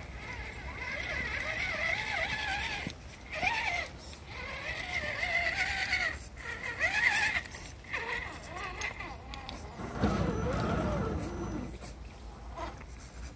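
A dog whining in a string of short, high whimpers that rise and fall in pitch, over the trickle of a shallow stream.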